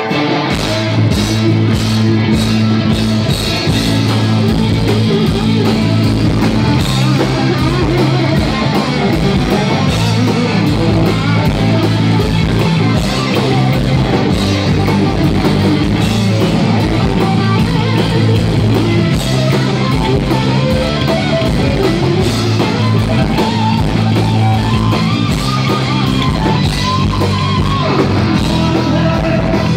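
Live rock band playing loudly: electric guitar, bass guitar, drum kit and keyboard.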